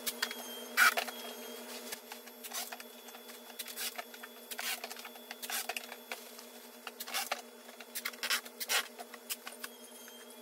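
Packing tape pulled off a handheld tape dispenser in a series of short strips and pressed onto cardboard box flaps, about ten uneven tearing strokes with the loudest about a second in.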